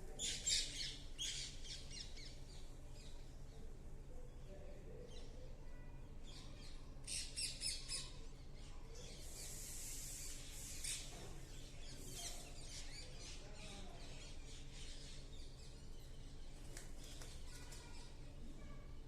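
Pet parrots squawking in harsh bursts: a cluster right at the start, another about seven seconds in, a longer rasping screech near the middle, and more squawks a little after, with fainter chirps in between.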